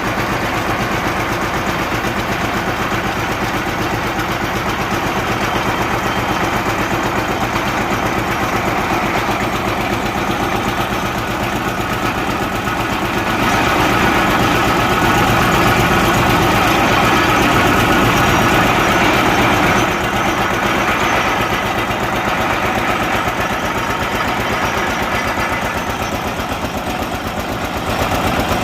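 Engine of a borewell drilling machine running steadily, growing louder for several seconds in the middle, then easing back.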